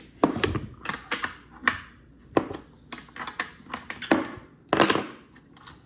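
Wrench loosening the 9/16-inch bolts on a pool pump motor: irregular metal clicks and knocks.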